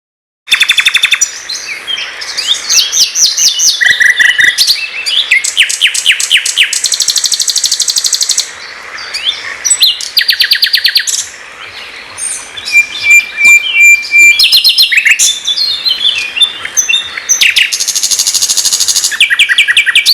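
A songbird singing a loud, varied song of fast trills, rapidly repeated notes and short whistled glides, delivered in phrases separated by brief pauses.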